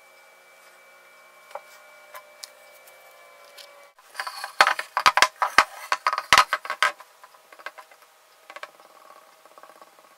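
A hard clay mask being picked up and turned over on a tabletop: a burst of clattering knocks and scraping about four seconds in that lasts some three seconds, then a few lighter knocks as it is handled. Before that, only a faint hum with a few small clicks.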